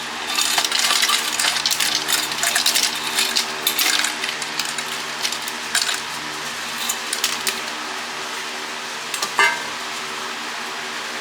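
Pieces of scrap copper clinking and rattling as they are dropped into a can, a dense run of clinks for the first few seconds, then scattered ones and a sharper clink about nine seconds in. A steady fan hum runs underneath.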